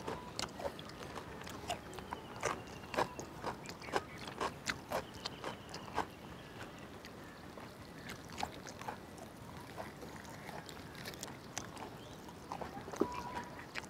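People biting into and chewing grilled turkey meat, giving irregular wet clicks and smacks. These come most often in the first six seconds.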